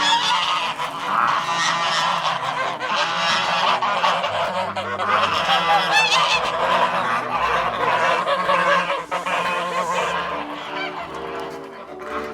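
A flock of domestic geese honking, many calls overlapping continuously.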